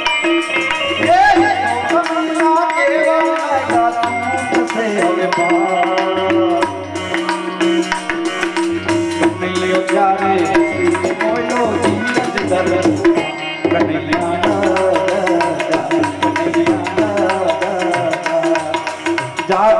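Devotional folk song: a voice singing long, winding lines over steady tabla drumming and other instrumental accompaniment.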